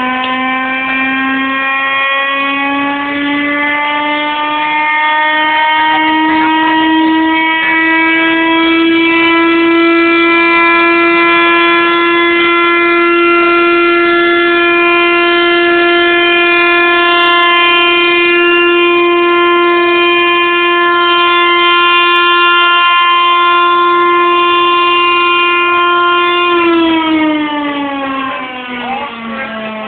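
Air-raid siren winding up into a steady wail, holding it, then winding down in pitch near the end.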